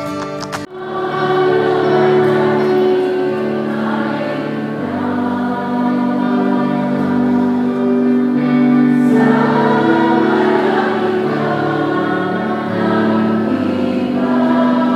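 Choral music: voices singing sustained, held chords.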